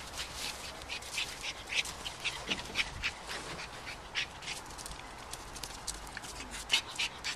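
A small shaggy terrier making short, breathy noises, repeated irregularly several times.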